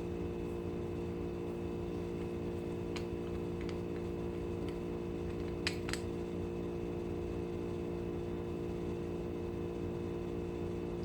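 A steady electrical hum runs throughout, while a small metal bench vise is worked to press a button onto a guitar tuner stem, giving a few faint clicks and two sharper metallic clicks close together about six seconds in.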